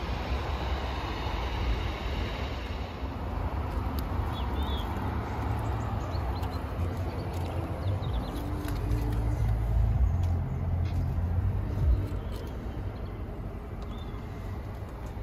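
Audi A3 1.4 TFSI's turbocharged four-cylinder petrol engine idling at about 1,000 rpm, a steady low rumble that grows louder between about eight and twelve seconds in.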